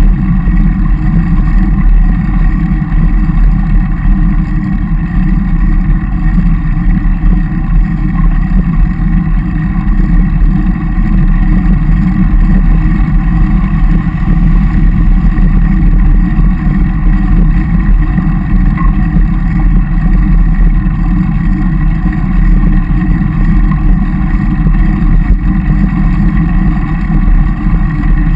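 Wind buffeting and road rumble on the microphone of a camera riding on a road bicycle: a loud, steady low rumble.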